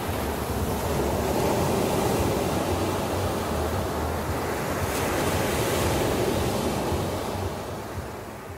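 Steady rushing noise with a low hum beneath, swelling slowly and fading away near the end.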